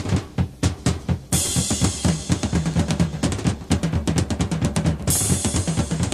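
Drum-led passage of a band recording: a drum kit plays a busy beat of bass drum and snare with low pitched notes underneath, and a cymbal crash comes about a second in and again near the end.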